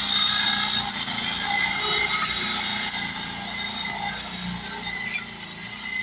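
Home-built electric tractor driving along under power, its electric drive giving a steady whine over a low hum. It grows gradually quieter in the second half.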